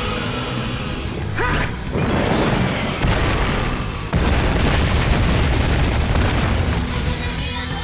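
Explosion and impact sound effects of a giant-monster battle: heavy booms and crashes, with a sharp hit about one and a half seconds in and a big blast starting about four seconds in that keeps rumbling.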